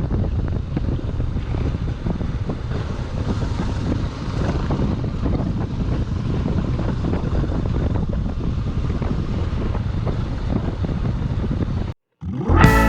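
Wind buffeting a microphone: a steady low rushing with flickering gusts. It cuts off abruptly near the end.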